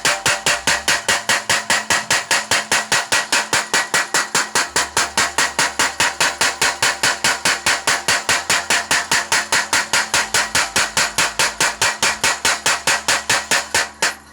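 Blacksmith's mechanical power hammer pounding in a fast, even rhythm of about four to five blows a second. It stops near the end.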